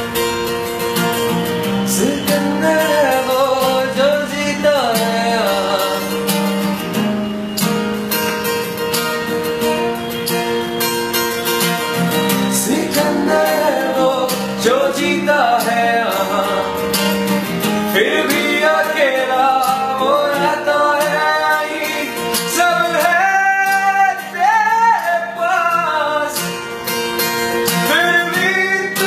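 Acoustic guitars playing with a male voice singing over them; the singing comes in about two seconds in.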